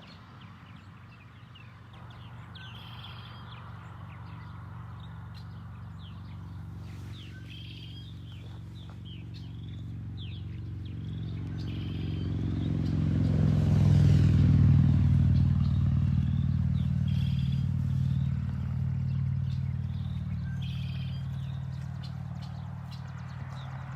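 A motor vehicle's engine approaching, passing about halfway through and fading away, with birds chirping now and then.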